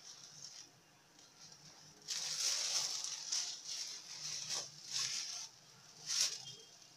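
A cloth and a plastic bag rustling and crinkling as they are pulled off a glass bowl. Faint at first, then a run of rustles from about two seconds in, with one last sharp crinkle near the end.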